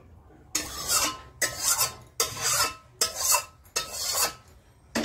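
Spatula scraping the last of a curry out of a kadai (wok), five scraping strokes in a row, each under a second, with short pauses between.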